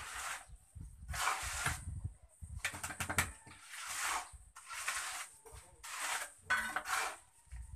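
Hand trowel scraping across a fresh cement floor in repeated strokes, about one a second, as the wet surface is smoothed and finished.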